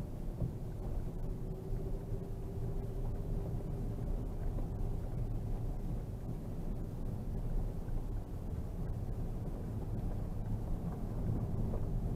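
Škoda Superb II's 3.6-litre VR6 engine running steadily at low revs under light load, with a low rumble from the tyres on packed snow, heard inside the cabin.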